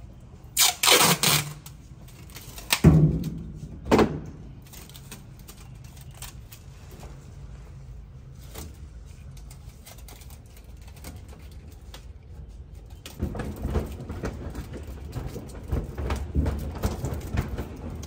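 Packing tape pulled off its roll in a few loud, sharp rips during the first four seconds, then quieter scraping and rustling as the tape is wrapped around a leaking washing-machine drain hose.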